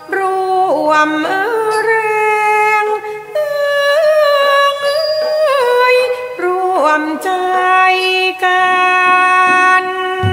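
A singer's voice in Thai classical style, holding long notes that bend and slide in phrases of a few seconds each, with little instrumental backing. This is the sung passage of a thao piece performed with a piphat ensemble.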